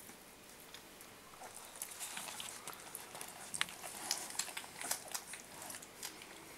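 Scattered soft clicks, scratches and rustles, thickest in the middle, as young puppies crawl and paw about on fleece bedding.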